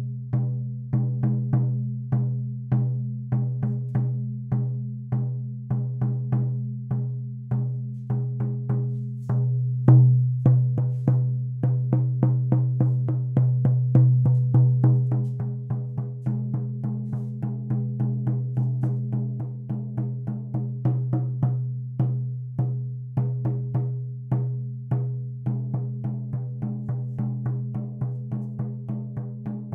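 16-inch shaman drum struck in a steady beat of about two to three strokes a second, its deep tone ringing on between strokes. The beat gets a little faster in the last few seconds.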